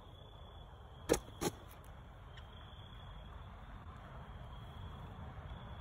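A rutting cashmere buck makes two short sputtering sounds about a second in, the tongue-out blubbering of a buck in rut, over a faint steady outdoor background.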